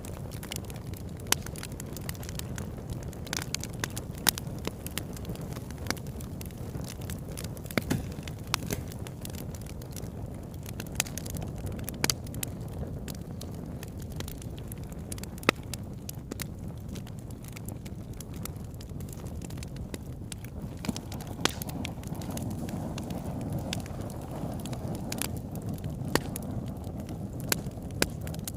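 Wood fire crackling: irregular sharp pops and snaps over a steady low rushing sound.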